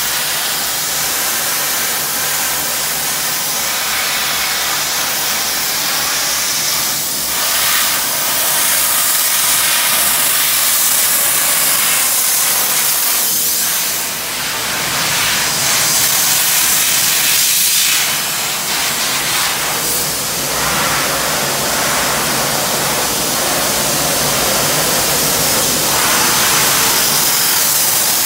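Sandblasting: a blast nozzle hissing loudly and continuously as compressed air drives abrasive against the steel of a 1942 Willys MB Jeep, with the hiss briefly dipping and swelling a couple of times.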